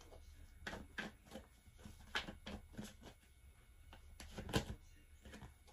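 Tarot cards being shuffled and sorted through by hand: a string of faint, irregular card snaps and flicks, the loudest about four and a half seconds in.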